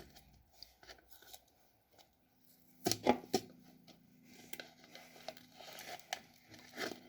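Light handling sounds: scattered small clicks and rustles, with two sharper clacks about three seconds in, over a faint steady hum.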